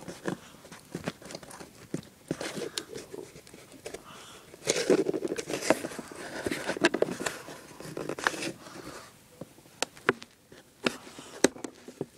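Trading-card display holder being handled while a card is fitted into it and closed up: irregular clicks, scrapes and crackling, louder for a few seconds in the middle.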